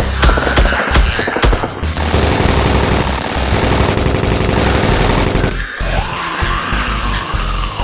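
Rapid machine-gun fire sound effects over background music, the firing giving way to music alone about five and a half seconds in.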